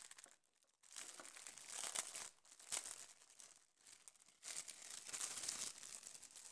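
Clear plastic crinkling as a waterproof phone pouch is handled and turned over, in three spells of a second or so each.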